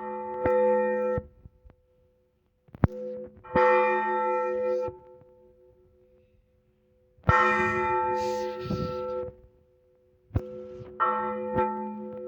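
Large church bell struck in slow, evenly spaced strokes, about four strokes each three to four seconds apart, each one ringing out and fading: the blagovest, the tolling of a single big bell that calls people to the church service.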